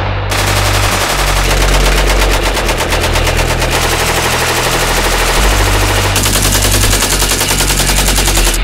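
Rapid gunfire from rifles: strings of fast, evenly spaced shots, with the sound changing abruptly a few times as one burst gives way to another.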